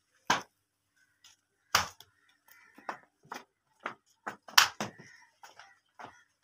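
A series of irregular sharp clicks and knocks, about a dozen. The loudest come about a third of a second in, near two seconds in and about four and a half seconds in.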